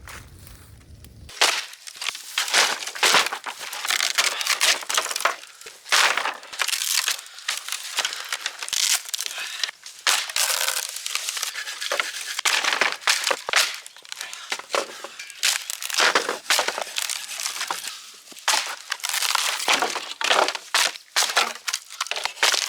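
Irregular crunching, crumpling and clattering of junk and debris being handled, starting about a second in, with glassy and brittle breaking sounds mixed in.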